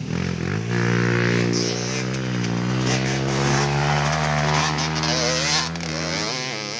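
Mini moto (pocket bike) engine running at high revs. Its note climbs about half a second in, holds with the pitch wavering, then drops off near the end.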